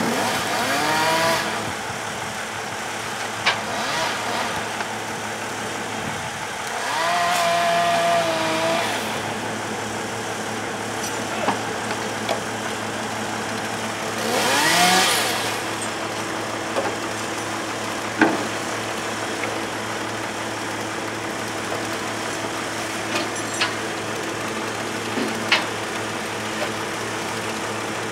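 An engine idling steadily, revved up briefly three times, each rev rising in pitch and falling back, with a few sharp clicks or knocks in between.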